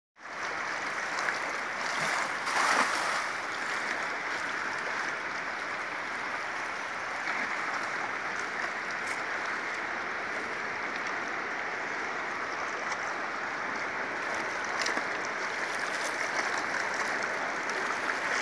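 Steady rush of a fast-flowing river current, a little louder about two to three seconds in.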